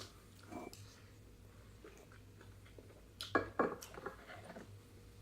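Faint eating sounds, cutlery and dishes clinking, over a low steady hum, with a louder cluster of clicks and smacks about three and a half seconds in.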